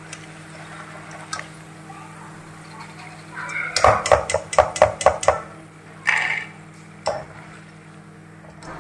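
Wire-mesh spider skimmer knocking against the rim of a metal wok (karahi) of hot oil: a quick run of about eight clinks in under two seconds, then two single knocks. Under it runs the steady sizzle of french fries deep-frying.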